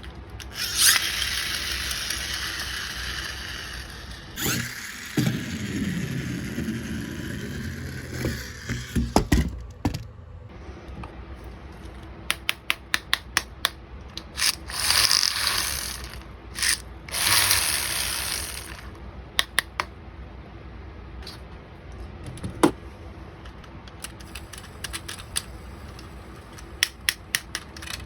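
Small toys being unpacked and handled: crinkly rustling of packaging in several stretches, with runs of quick, sharp mechanical clicks like a small ratchet and a single knock a little over two-thirds of the way through.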